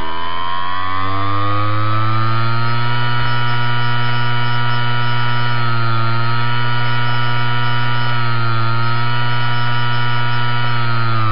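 Hard disk spindle motor with a bad bearing spinning, a loud whine with a strong low hum and many overtones. Its pitch rises over the first two seconds, dips briefly twice, about six and eight and a half seconds in, and starts to fall near the end. The uneven speed is the sign of a damaged spindle bearing or coil.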